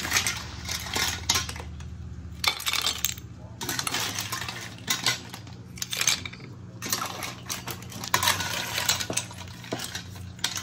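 Steamed clams in their shells clattering and clinking as they are spooned from a stainless steel pot into a ceramic pie dish: shell against shell, metal spoon and dish, in repeated quick runs of clicks. A steady low hum lies underneath.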